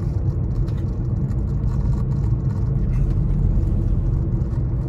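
Steady cabin noise of a Maruti Swift VXi on the move: its 1.2-litre four-cylinder petrol engine holds an even note under a low road and tyre rumble, with no revving.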